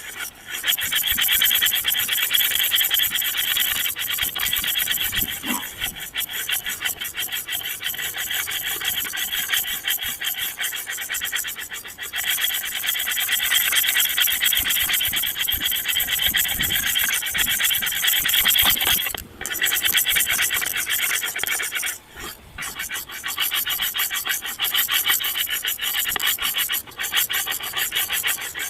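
A continuous harsh scratching, rasping noise, like something rubbing rapidly against a surface, with two brief breaks in the last third.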